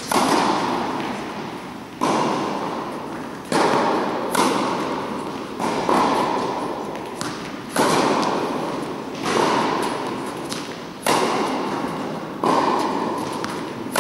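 Tennis ball being struck by rackets and bouncing during a baseline rally, a sharp pock about every second or so, each one echoing on in a large indoor hall.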